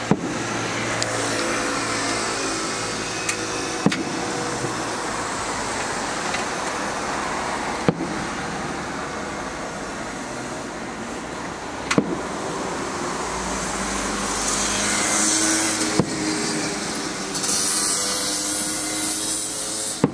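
Aerial firework shells bursting, a sharp bang about every four seconds, six in all, over the steady rumble of passing vehicles that swells and turns to a hiss near the end.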